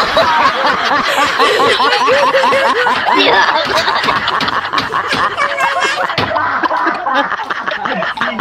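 A child laughing hard and without a break, in rapid high-pitched ha-ha bursts that repeat several times a second.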